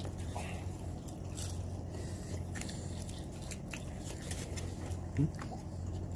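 Biting and chewing crispy fried chicken: a run of small, sharp crunches and crackles as the fried coating breaks while it is chewed.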